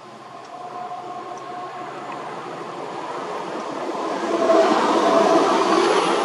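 Class 70 diesel locomotive hauling a freight train, working hard with its exhaust smoking as it approaches. The engine grows steadily louder, with a steady whine over it, and swells sharply about four and a half seconds in.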